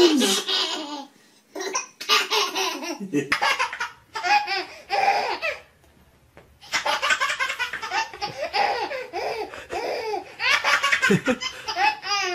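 Babies laughing hard in repeated peals of giggles, each burst broken into quick pulses, with short pauses between bursts.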